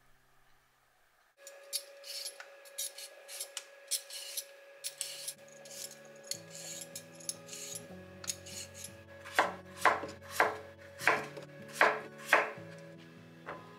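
A vegetable peeler scrapes the skin off a potato in quick strokes, starting about a second and a half in. Then a kitchen knife cuts the peeled potato into chunks on a wooden cutting board, six sharp knocks about half a second apart. Soft background music plays underneath.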